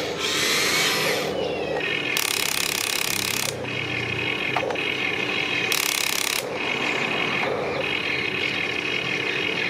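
Small electric motors and gearboxes of a remote-control tracked excavator whining as it drives its tracks over loose dirt. There are louder, harsher stretches about two and six seconds in.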